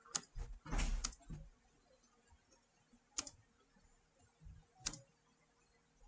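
Typing on a computer keyboard: irregular key clicks and taps, a quick cluster in the first second and a half, then single clicks about three and about five seconds in.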